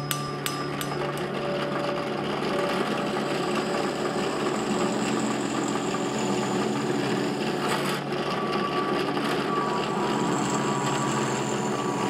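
A few sharp hammer blows on the steel blade on the anvil in the first second, then a drill press running steadily, its bit boring through the steel spatula blade.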